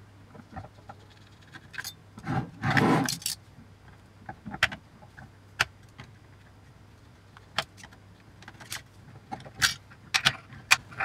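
Small metal parts and wiring of an avionics assembly being handled: scattered clicks and clinks, with a longer scraping rattle about two and a half seconds in.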